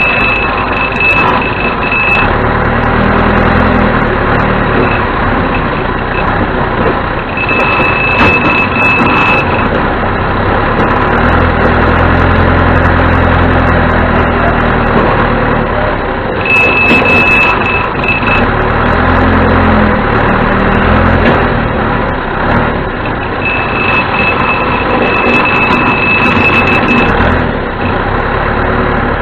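1987 John Deere 210C backhoe loader's four-cylinder diesel engine running under work, its note swelling and shifting in places, while its backup alarm beeps in four separate stretches as the machine reverses.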